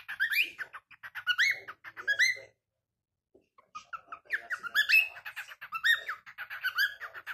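Cockatiel singing: fast runs of short rising chirps and whistles, in two phrases with a pause of about a second midway.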